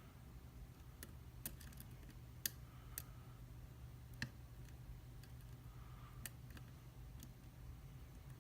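Faint, irregular metallic clicks of a lock pick working the pins of a pin-tumbler lock, about seven in all, over a low steady hum.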